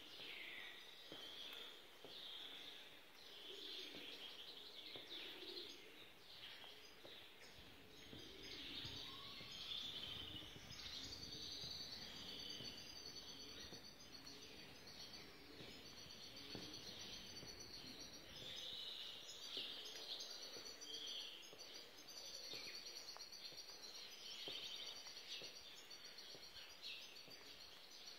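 Many small birds chirping and twittering continuously, faint, with some lower calls beneath and a soft low rumble through the middle stretch.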